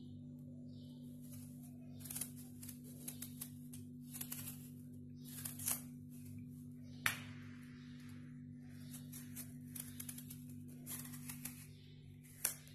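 A small kitchen knife slicing a peeled raw potato, held in the hand, into thin slices: a run of short, crisp cuts and scrapes at uneven intervals, over a steady low hum.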